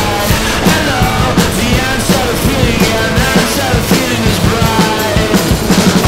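Rock music with a singer over a driving drum-kit beat.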